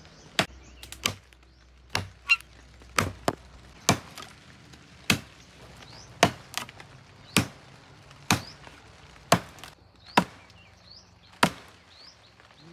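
Machete chopping into a woody stem: sharp hacking strikes, roughly one a second, some coming in quick pairs. Faint high chirps of birds or insects sound between the strokes.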